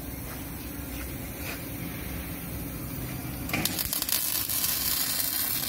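Electric arc welding on a steel rebar cage: a welding arc strikes about two-thirds of the way in and crackles and sizzles steadily, with a low steady hum beforehand.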